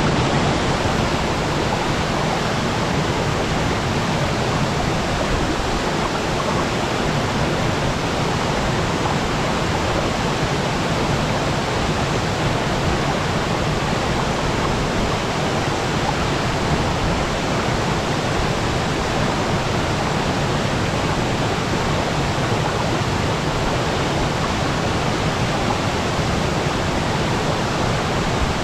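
Waterfall pouring steadily: a continuous, even rush of falling water with no breaks or changes.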